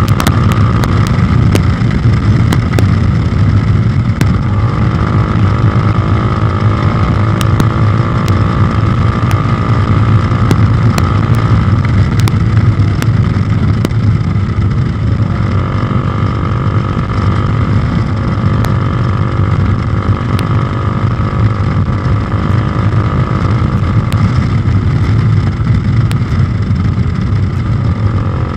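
Bajaj Dominar 400's single-cylinder engine running steadily under way, its note rising and falling slightly, over a heavy rush of wind and road noise.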